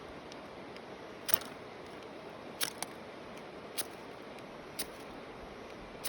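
Magnesium fire-starter rod being struck with a scraper to throw sparks into hemp-twine tinder: five short, sharp scrapes about a second apart.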